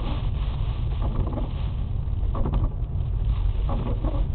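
Steady low road and engine rumble inside a moving car, with a soft swishing sound that repeats about every second and a half.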